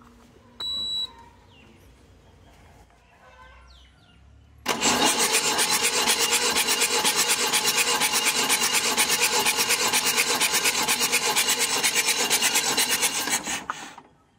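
Mahindra CJ500D's B275 four-cylinder diesel engine turning over on its starter motor for a compression test, with a gauge screwed into cylinder four's injector port. The cranking is a fast, even pulsing that starts about five seconds in, runs for about nine seconds and stops near the end. A short high tone sounds about half a second in.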